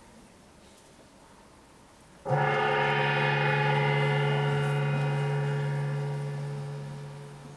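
A gong struck once about two seconds in: a sudden, loud, deep ring with many overtones that holds for a few seconds, then slowly fades.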